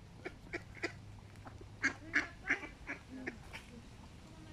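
Mallard ducks quacking: a series of short quacks, loudest and closest together about two seconds in.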